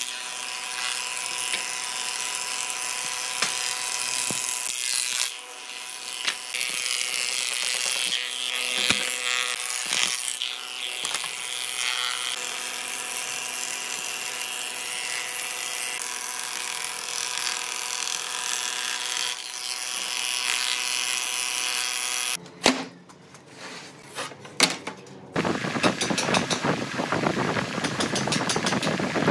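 Woodworking planer running and cutting a wooden board: a steady, loud machine whine with the hiss of the cutter knives taking off shavings, easing briefly about five seconds in. Near the end the machine noise stops, a few clicks follow, then a rough, rapidly repeating scratchy noise.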